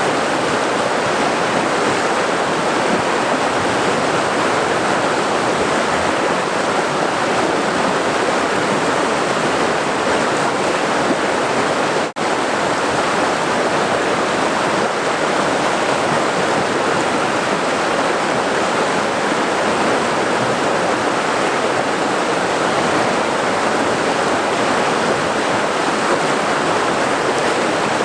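Steady rush of a boiling river's water, an even, unbroken noise with a momentary dip in level about twelve seconds in.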